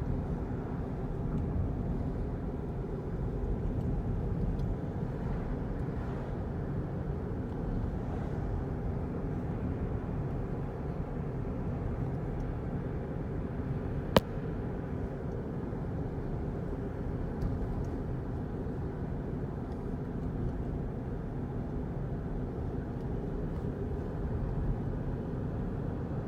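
Steady low road noise of a motor vehicle, with one sharp click a little past halfway.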